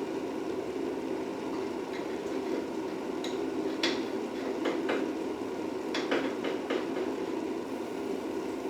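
Metal tools and hardware clinking a handful of times over a steady low hum. The sharp clicks come in small clusters, the densest about six seconds in.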